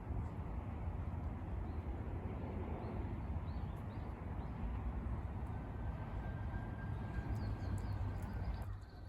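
Outdoor ambience: a steady low rumble with a few faint, high bird chirps, more of them near the end.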